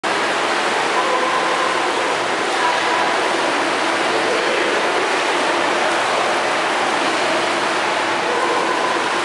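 Steady splashing and churning of water from several swimmers swimming laps in an indoor pool.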